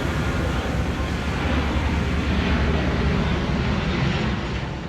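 Engine rumble of something passing by, swelling to its loudest about three to four seconds in and then fading.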